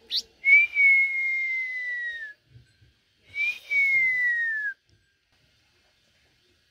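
Blue-winged minla singing: a short high chip, then two long clear whistles. Each whistle rises briefly and then slides slowly down in pitch, with about a second between them.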